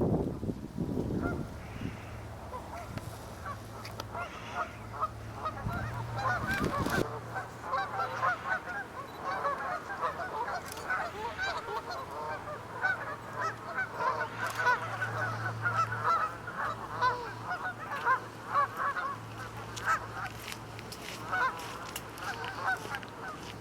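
A large flock of Canada geese honking, many calls overlapping in a constant chorus. Wind rumbles on the microphone for the first several seconds.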